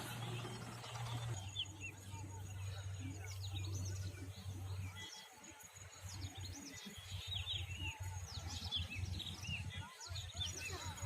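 Small birds chirping, a busy scatter of short, quick chirps, over a low steady hum.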